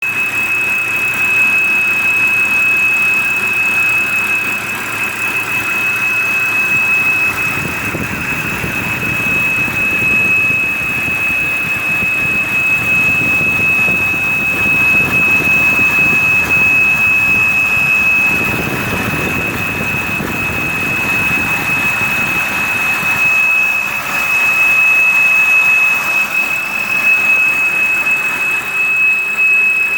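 2006 BMW E90 325i's straight-six running, with a loud, steady, high-pitched whine over the engine and road noise. The whine holds one pitch throughout, even as the engine sound swells and falls back. It is an unexplained noise whose source the owner cannot locate.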